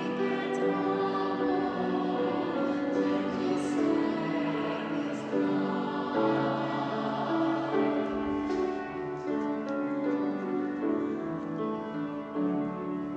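Girls' treble voices singing a hymn, with long held notes.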